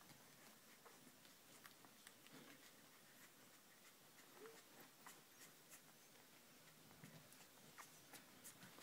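Faint sounds of six-day-old Border Collie puppies nursing: scattered soft clicks of suckling, with one brief tiny squeak about four and a half seconds in.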